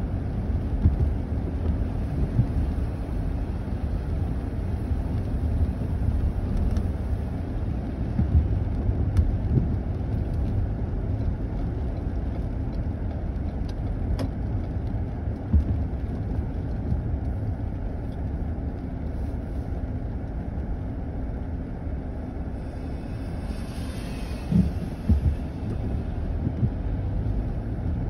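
Road noise inside a moving car's cabin on wet, slushy pavement: a steady low rumble of tyres and engine, with a few light knocks from bumps and a brief hiss a few seconds before the end.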